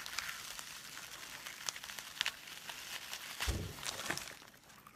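Faint crinkling and scattered clicks of shredded candy 'grass' strands being handled, bitten and chewed, with one low thump about three and a half seconds in.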